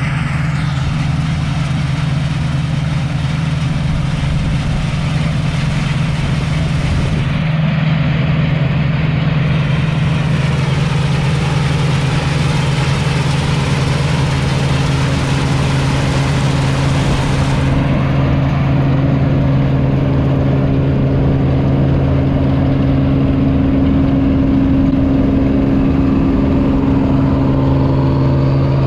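Claas Dominator 85 combine harvester running steadily: a constant diesel engine hum with the machinery's whirring noise over it. The hiss thins abruptly about 18 seconds in.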